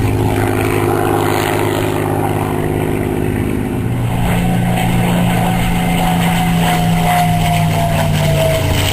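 Piston-engined propeller warbird running steadily as it flies past, a drone with a tone that falls slowly in pitch over the second half.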